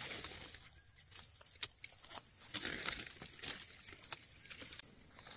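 An insect trilling steadily at a high pitch, with scattered faint clicks and rustles from close by.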